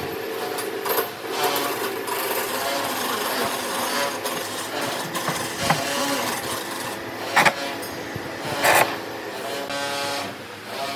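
A small electric power tool running with a steady whine, with two sharp knocks in the second half.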